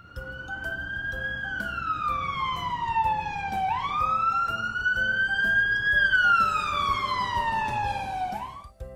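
Emergency-vehicle siren on a slow wail: two long rise-and-fall sweeps that cut off near the end, over light background music.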